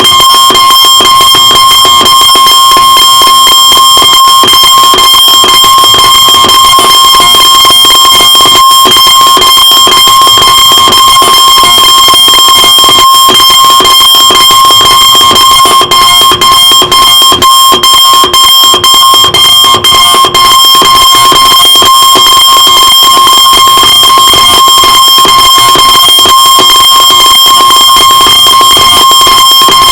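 Electronic alarm clock sounding a loud, steady, high-pitched alarm tone with a rapid buzzing pulse. About halfway through it is broken by a quick run of short dropouts.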